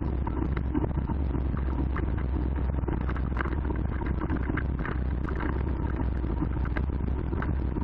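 Mountain bike rolling over a dirt forest trail, heard from an action camera on the bike or rider: a steady low rumble of wind and riding on the microphone, with frequent short clatters and rattles from the bike.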